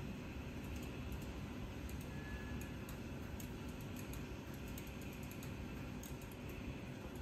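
Steady low hum of a TV-panel laser repair machine at work, with faint, irregular light ticks scattered through it.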